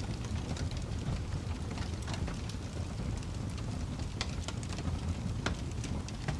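Wood fire crackling: scattered sharp pops and snaps at irregular moments over a steady low rumble.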